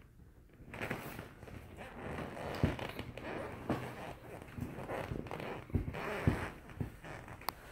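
Close rustling and rubbing as a dog nuzzles against the phone, its fur brushing the microphone and the leather couch creaking, with several sharp knocks starting about a second in.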